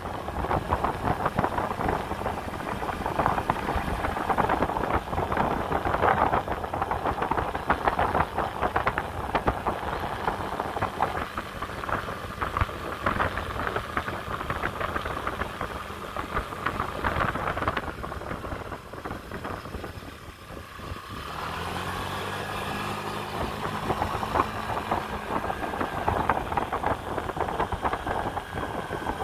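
Air-cooled four-stroke single of a Honda Dio AF68 50 cc scooter running under way at a steady low speed, mixed with rushing riding noise. About two-thirds of the way through the sound dips briefly, and after that the engine's steady hum comes through more clearly.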